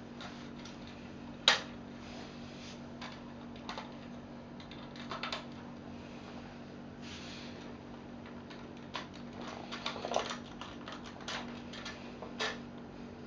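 Scattered clicks and knocks of Lego Technic plastic parts being handled and fitted, the loudest a sharp click about a second and a half in, with a cluster of small clicks around ten seconds in, over a steady low hum.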